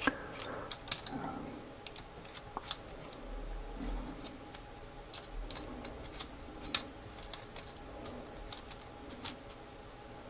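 Small irregular clicks and ticks of a precision screwdriver bit and fingers working against the hard plastic parts of a gimbal during disassembly.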